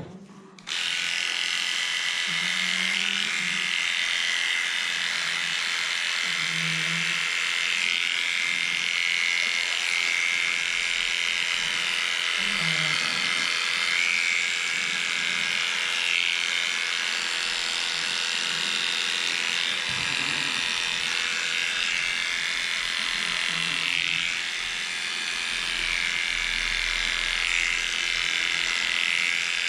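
Electric dog-grooming clippers switch on just under a second in and run with a steady buzz as they shave a pug's coat.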